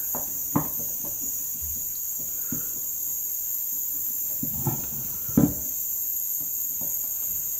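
Hands twisting and bending a stranded wire at a small aviation-plug connector in a helping-hands clamp, giving a few faint, short clicks and knocks. Under them runs a steady high-pitched hiss.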